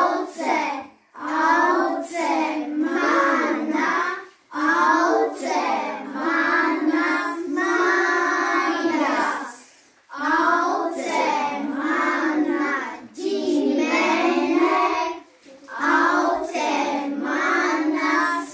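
A group of young children singing a greeting song together, in phrases broken by short pauses.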